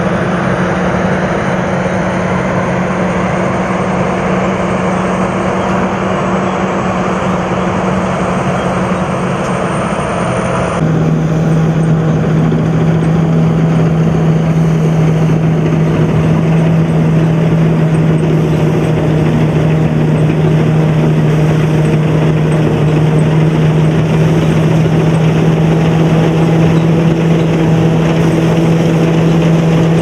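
Sakpattana KM-D No.2 combine harvester running while harvesting rice: its 220 hp turbo diesel engine and threshing machinery give a loud, steady hum. A little over ten seconds in, the sound changes suddenly to a slightly lower, louder hum.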